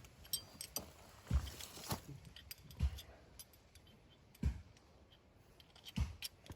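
Scattered light clicks and dull knocks of metal parts being handled, a winch hook and cotter pin being worked free and refitted to a new winch cable.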